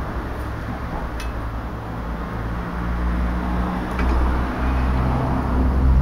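A low rumble with a steady hum grows louder over the last few seconds, with a couple of faint clicks as soaked willow rods are bent and woven around a block jig.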